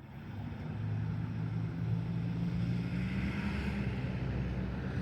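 A train's locomotive running with a steady low hum, rising slightly in the first second.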